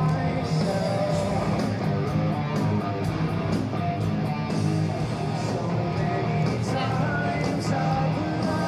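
Hard rock band playing live through a large outdoor PA: distorted electric guitars, bass and a steady drum beat with crashing cymbals, heard from within the crowd.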